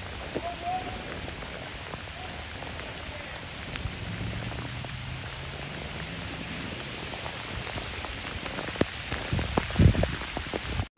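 Heavy rain pouring steadily onto flooded street water, an even hiss. A few brief low thumps come near the end.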